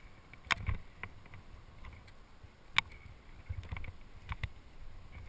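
A rock climber moving on granite: sharp clicks and knocks from harness gear and hands on the rock, the loudest a little under three seconds in, over a low rumble of handling noise on the head-mounted camera.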